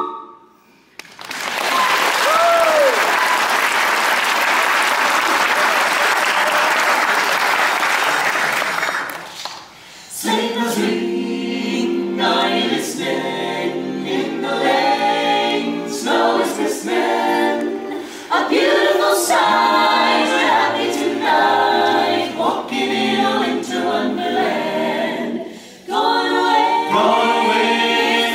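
An audience applauds for about eight seconds after a song, with a single whoop early on. About ten seconds in, a mixed-voice a cappella choir starts singing a carol in close harmony.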